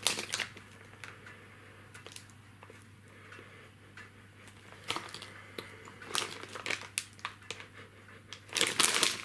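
Plastic candy bag crinkling as it is handled: a few light rustles at first, then more frequent crinkles from about five seconds in, loudest near the end.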